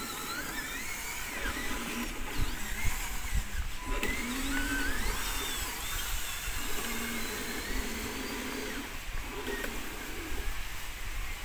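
Small electric motor of an RC construction vehicle whining in several short runs, speeding up and slowing, with birds chirping in the background.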